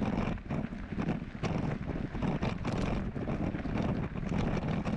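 Wind buffeting the microphone: an uneven low rumble that rises and falls irregularly.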